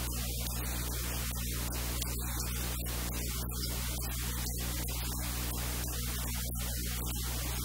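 Steady static hiss over a low electrical mains hum.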